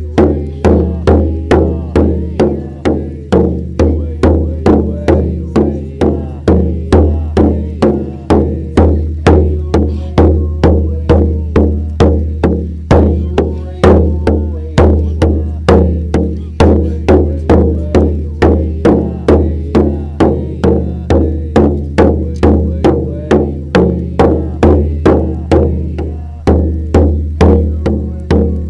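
Background music: a steady beat of struck notes, about two a second, each dying away quickly, over a deep low tone.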